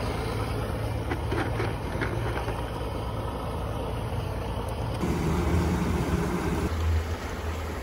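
A boat's outboard motor running steadily with a low hum. About five seconds in, the sound changes abruptly to a louder engine note as the boat tows a raft on a rope.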